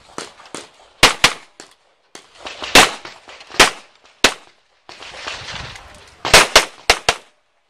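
Handgun firing a string of shots during a practical pistol stage, many in quick pairs about a fifth of a second apart, with short pauses between groups as the shooter moves between firing positions.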